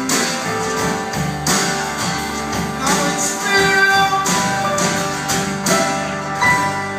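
Live rock band playing with an acoustic guitar strumming chords that ring on between strokes.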